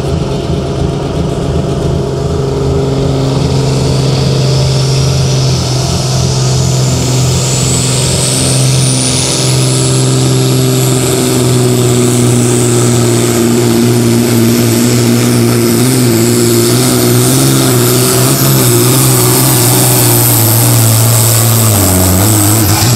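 Super Sport pulling tractor's turbocharged engine running loud and hard under load, with a turbo whine that rises steadily over the first ten seconds and then holds high. The engine note drops right at the end as the tractor completes a full pull.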